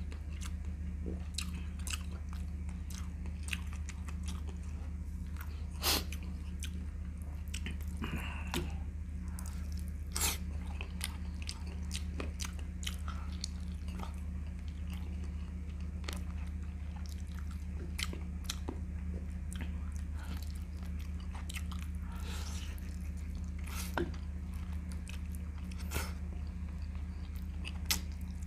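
Close-miked eating sounds: a man chewing and biting braised chicken legs held in his hands, with frequent sharp wet clicks and smacks of lips and fingers. A steady low hum runs underneath.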